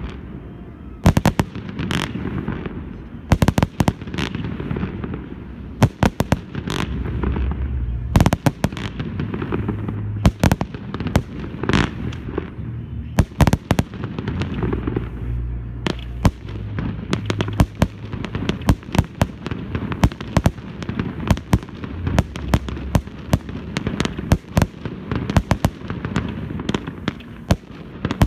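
Aerial fireworks display: a dense, irregular string of sharp bangs and cracks from shells bursting overhead, over a constant low rumble.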